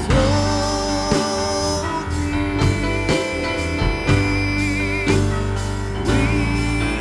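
Church worship band playing an instrumental passage of a slow worship song, with guitar over held notes and a steady bass.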